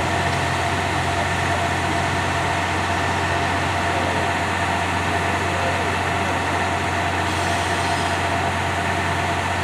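Diesel railcar engine running with a steady, unchanging hum as the railcar pulls slowly out.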